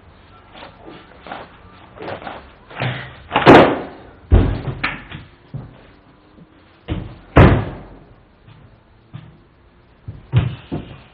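A door banging and slamming: a run of sudden knocks and thuds, the loudest about three and a half and seven and a half seconds in, with a heavy low thud in between and smaller knocks near the end.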